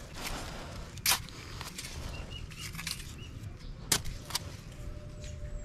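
A machete blade digging into dry soil, with faint scratching strokes and a few sharp strikes, the loudest about a second in and another near four seconds in.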